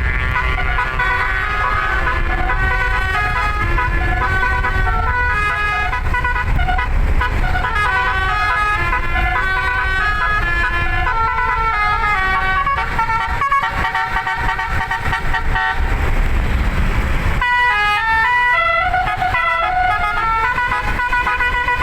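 Eleven-note 'telolet basuri' musical air horn playing a fast tune, the notes changing several times a second over a steady low rumble. About seventeen seconds in the tune breaks off with a rising tone and a new tune starts abruptly.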